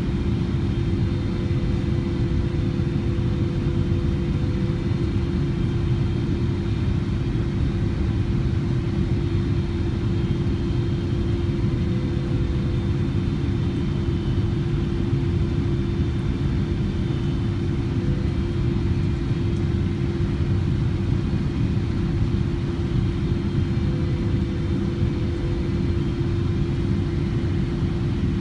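Boeing 777 cabin noise heard from a window seat during the descent: a steady rumble of engines and airflow with a constant low hum running through it.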